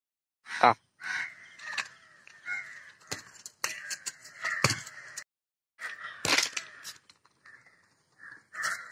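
Crows cawing repeatedly, with a few sharp knocks from a football being kicked and headed.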